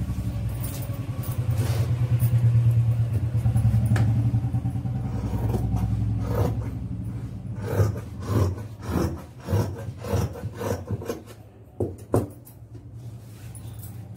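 Large tailor's scissors cutting across doubled cloth in a run of snips about twice a second, then a single click as they are set down. Before the cutting, a low engine hum swells and fades, like a motor vehicle going by.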